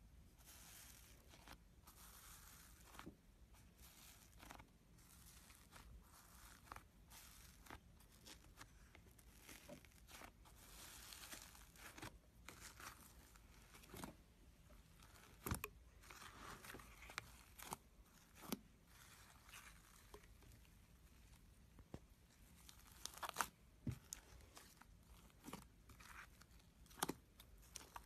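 Iceberg slime being handled, its dried top crust crackling and crunching in faint, scattered snaps, with a few sharper cracks in the second half.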